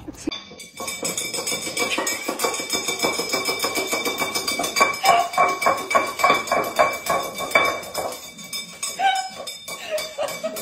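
Dog knocking its empty food bowl about on a hard floor, clattering and clinking over and over in quick runs of knocks, to demand breakfast.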